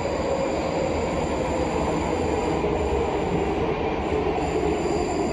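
Prague Metro Line A train running: a steady rumble of wheels and motors, with a tone that slowly falls in pitch as the train slows for the next station.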